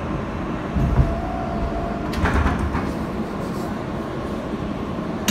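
R160B subway car coming to a stop at a station, heard from inside: steady rumble of wheels and motors, a thump about a second in followed by a short steady squeal, then a burst of hissing air around two seconds in as the train halts and the doors open.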